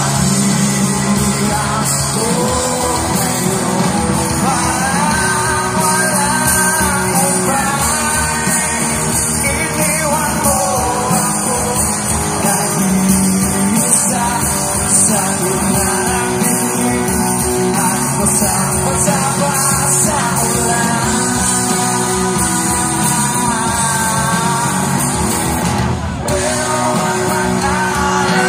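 Live rock band playing a song: a male lead singer over electric guitars, bass guitar and drums.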